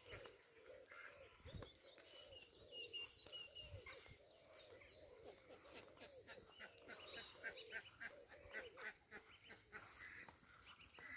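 Faint, repeated short calls of domestic ducks and geese, with small birds singing thinly behind them.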